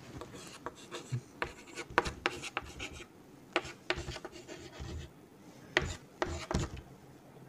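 Chalk scratching on a chalkboard in short, irregular strokes as a formula is written out by hand.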